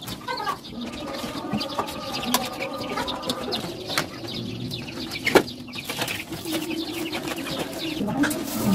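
Pigeons cooing, with small birds' short chirps and a few sharp clicks, the loudest about five seconds in.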